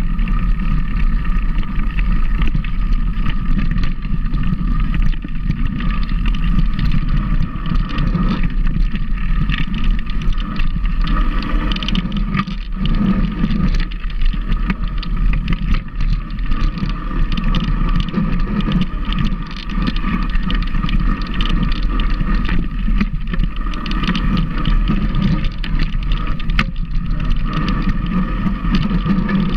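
Steady running noise of a moving vehicle: a constant low rumble with a few steady tones above it, unbroken throughout.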